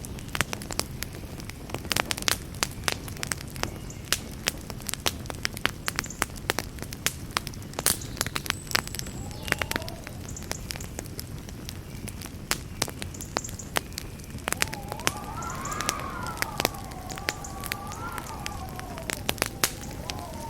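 Wood campfire burning, with frequent sharp crackles and pops over the low steady rumble of the flames. A wavering whistle that rises and falls sounds in the last few seconds.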